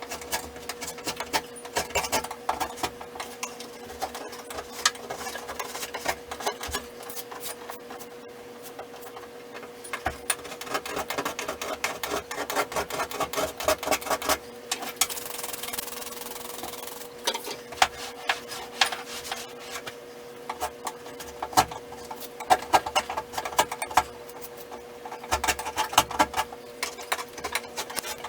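Old wallpaper and wall border being scraped and peeled off a wall: irregular rasping scrapes and sharp ticks, busiest about halfway through, over a steady faint hum.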